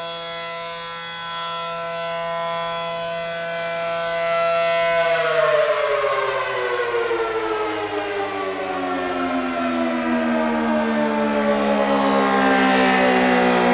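ACA Allertor 125 rotating electromechanical civil-defense siren with a 9/12-port rotor, sounding its steady two-tone chord. About five seconds in, its pitch starts to fall and keeps falling slowly to the end. It grows louder as the rotating horn swings toward the listener.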